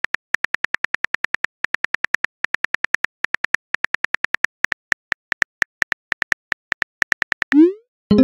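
Simulated phone keyboard clicks from a texting-story app: quick runs of short, identical ticks, several a second, with brief pauses as the message is typed out. About seven and a half seconds in, a short rising swoosh as the message is sent, then right at the end a plucked note that rings on.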